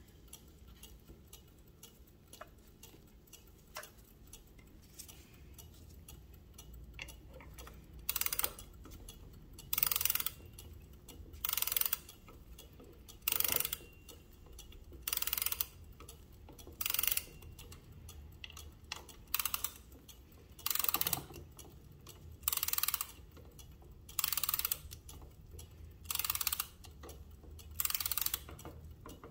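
Antique French carriage clock's mainspring being wound with a key: a short burst of ratchet clicking with each turn, about one every two seconds, starting about a quarter of the way in, over the clock's faint ticking.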